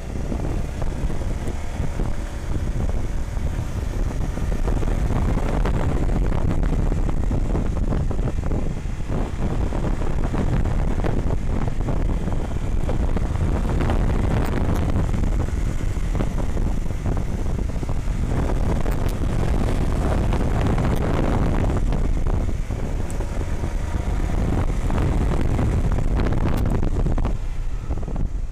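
Honda CBR150R single-cylinder engine under way, its pitch rising and falling as it revs through the gears and corners, with heavy wind noise buffeting the action camera's microphone.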